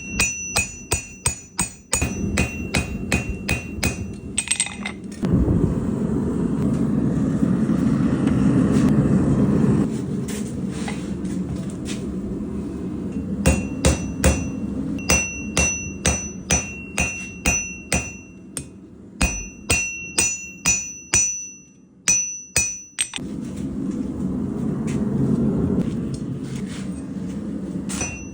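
Hand hammer striking steel on an anvil in quick rhythmic rounds of blows, roughly three a second, each blow with a high ring. Between the rounds a steady rushing noise runs for several seconds at a time.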